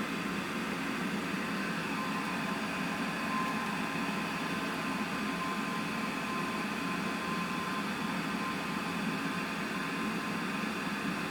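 Steady background hiss with a faint constant hum, even in level throughout, with no distinct knocks or clicks.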